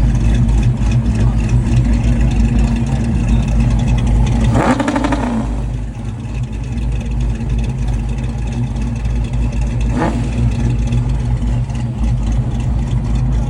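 Saleen Fox-body Mustang's V8 idling with the choppy, loping idle of an aggressive cam. The throttle is blipped once about four and a half seconds in, the revs rising and falling back to idle, and there is a brief sharp sound near ten seconds.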